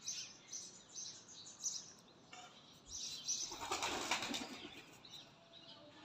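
Pigeons' wings flapping in a flurry for about two seconds, starting about three seconds in, with small birds chirping around them.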